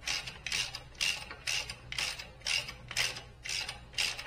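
Hand socket ratchet with an extension and hex bit clicking in short bursts about twice a second as it is swung back and forth, backing out the thread-locked 8mm hex main bolt of a motorcycle's forward-control shift peg.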